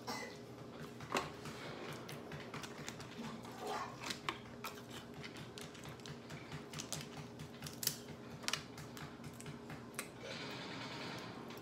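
Snow crab leg shells being cracked and snapped apart by hand, with eating at the mouth in between. The result is an irregular run of small clicks and a few sharper snaps.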